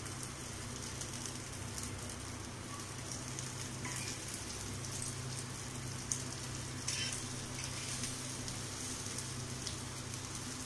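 Potato masala rolls sizzling steadily in ghee on a flat tawa as they fry to golden brown. A few short scrapes and taps of a spatula come as the rolls are turned, the sharpest about six seconds in.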